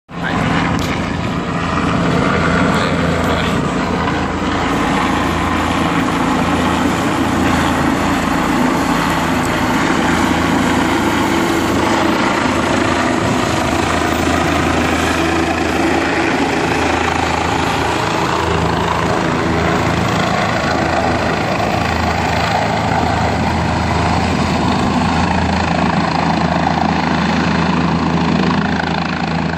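Medical helicopter flying overhead as it comes in to land: a loud, steady engine and rotor sound.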